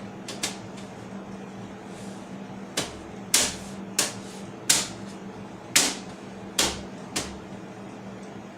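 A run of about eight sharp clicks and knocks, unevenly spaced, from the parts of a desktop computer being handled, over a steady low hum.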